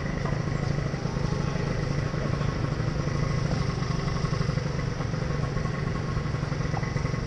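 Gilera Runner SP scooter engine idling steadily while stopped, an even low hum with no revving.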